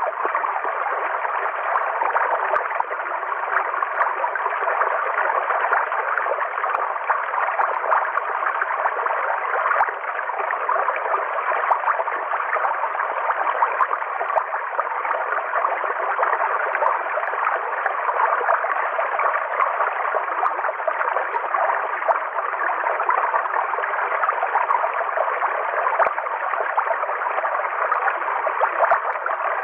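River water flowing in a steady, even rush that neither rises nor falls, with little deep bass or high treble.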